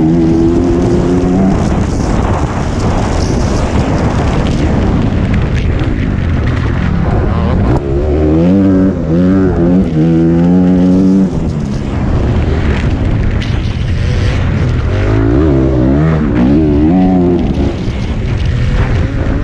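Off-road rally motorcycle engine heard from on board under way, its pitch climbing and dropping repeatedly as the rider works the throttle and gears, over a steady rush of wind and track noise.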